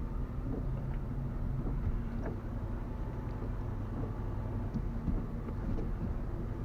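Car engine running steadily at low revs while the car is slowly manoeuvred into a parking spot, with a few faint clicks.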